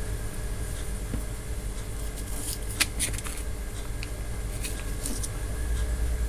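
Foil-laminated engine-flush sachet crinkling and rustling as it is handled, with clusters of sharp crackles about halfway through and again near the end, over a steady low hum.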